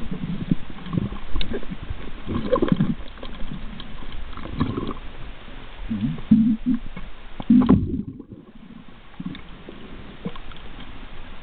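Muffled, irregular underwater rumbling and gurgling of water moving around a submerged camera as the swimmer moves, with scattered short knocks and a brief drop-out just after the middle.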